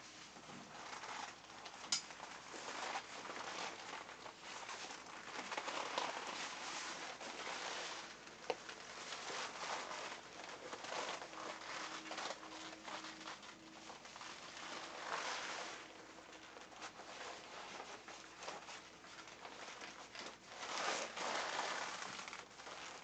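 Crinkly rustling of a PVC sauna suit and costume fabric as a jacket is pulled off a hanger and put on, in uneven surges, with a couple of sharp clicks, one about two seconds in and one about eight seconds in.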